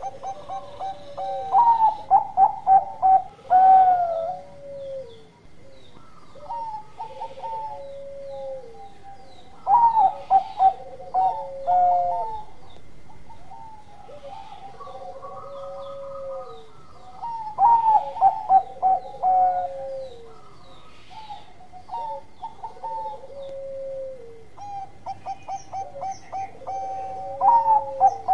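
Bangkok-type zebra dove (perkutut) singing its cooing song: a quick run of short notes ending in a longer falling coo. Four loud phrases come about every eight seconds, with softer coos between them.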